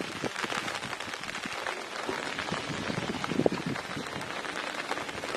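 Steady rain falling, a dense spread of small drop hits.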